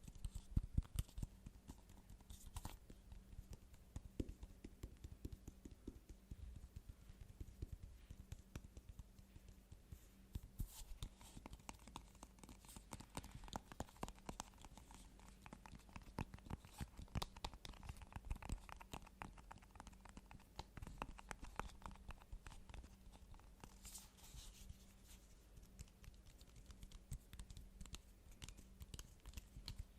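Fingers tapping and scratching quickly on assorted objects: a dense, irregular run of light clicks and taps with occasional sharper strikes.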